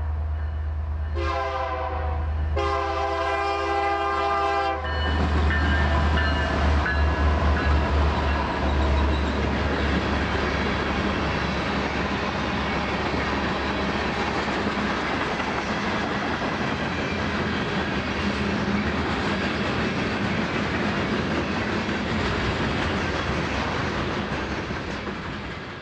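Diesel freight locomotive sounding its horn twice, a shorter blast then a longer one, over the low rumble of its engine. The train then passes close by, and the tank cars and flatcars keep up a steady rush of wheels on the rails.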